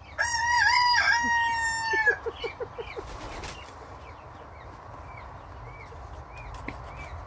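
A rooster crows once, a loud drawn-out call of about two seconds in two parts, followed by a quick run of low clucks. Faint high chirps repeat in the quieter second half.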